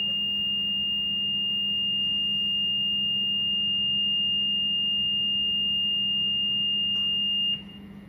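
Garland MWE3 grill's reed-switch beeper sounding one steady, high-pitched beep, showing the platen reed switch is still activated. It cuts off suddenly near the end as the adjuster is wound anti-clockwise to the point where the reed switch drops out.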